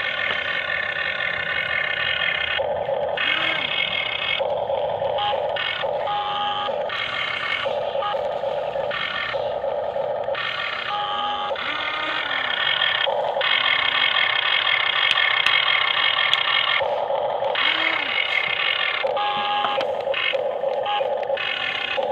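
Electric drive motors of a radio-controlled model excavator whining, cutting in and out in short spells of one to a few seconds, with brief rising-and-falling pitch glides.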